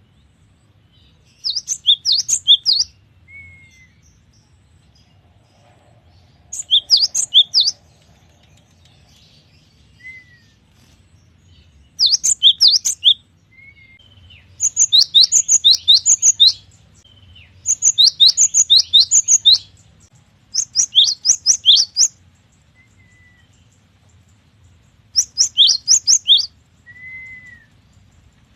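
Cinereous tit (gelatik batu) singing: about seven bursts of rapid high, sweeping whistled notes, each lasting a second or so, separated by pauses, with soft single lower notes in between.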